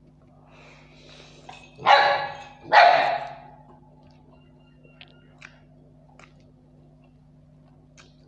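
A small dog barks twice, about a second apart, loud and short. Faint clicks of eating follow.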